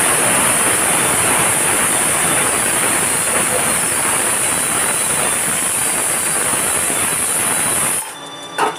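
Pressure cooker whistle: a loud, steady hiss of steam venting, high-pitched and even, that cuts off suddenly near the end.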